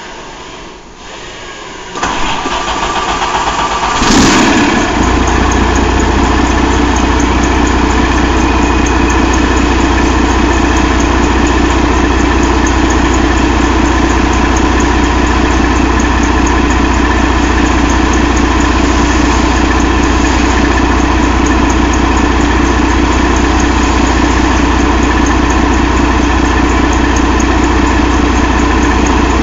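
2012 Detroit DD13 inline-six diesel engine cranked by its starter, firing about four seconds in with a brief flare, then settling into a steady idle.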